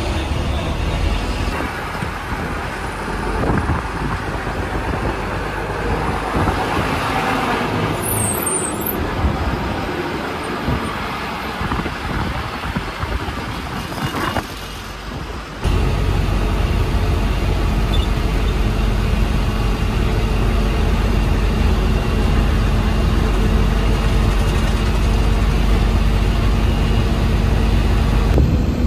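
Diesel engine and road noise of a moving MSRTC BS6 bus. About halfway through it changes abruptly to a louder, steadier low engine drone.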